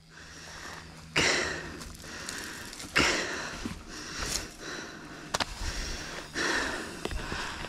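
A mountain biker breathing hard while riding: several loud, hissing breaths, with a few sharp clicks in between.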